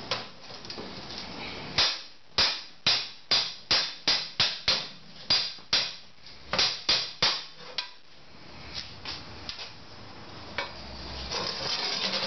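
Brass-headed hammer striking a steel motorcycle rear brake disc, about fifteen sharp metallic blows at two to three a second, starting about two seconds in, then a few weaker knocks near the end.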